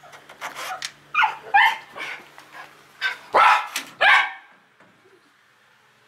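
Schnauzer barking and yipping in a quick string of sharp, high cries, loudest about three to four seconds in, then stopping.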